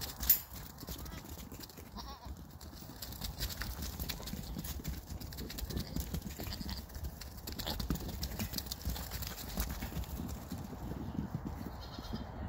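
Young goats running past, their small hooves pattering and knocking on the dirt path in many quick irregular steps, with one sharp loud knock right at the start.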